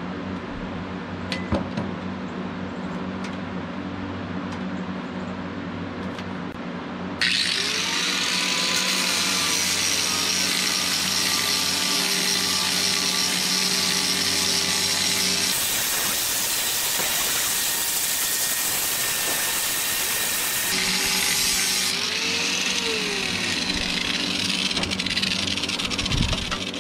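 Handheld angle grinder running against the cut end of a cherry log, grinding the top of a bench leg flat. It starts about a quarter of the way in and cuts off shortly before the end, its tone shifting for a few seconds in the middle. Before it starts there is a steady low hum and a single knock.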